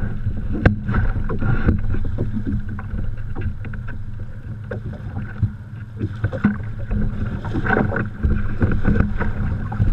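Small waves lapping and sloshing against a Pelican kayak's plastic hull in the shallows, over a steady low rumble, with many scattered short knocks and clicks.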